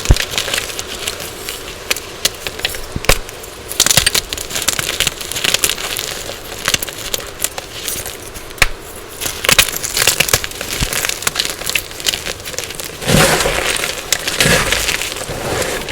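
Dyed gym chalk being crushed and crumbled: a dense run of sharp crunches and crackles, with a heavier stretch of crumbling about thirteen seconds in.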